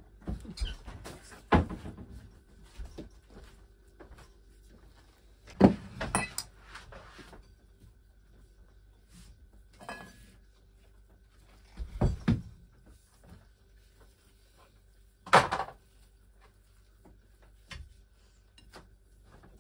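Plates, a spoon and pancakes being handled on a kitchen table as pancakes are filled and rolled: about half a dozen short knocks and clinks several seconds apart, over a faint steady hum.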